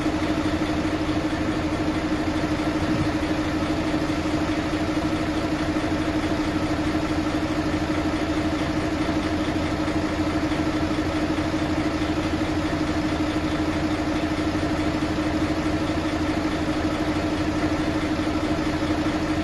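Mercedes-Benz Actros truck's six-cylinder diesel engine idling steadily with an even, unchanging note. The engine has an abnormal noise, which the mechanic traces to cylinder six.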